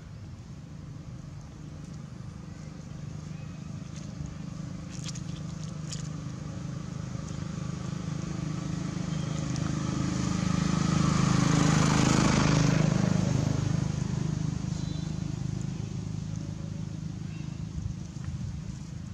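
A motor vehicle's engine passing slowly along the road, growing louder to a peak just past the middle and then fading away.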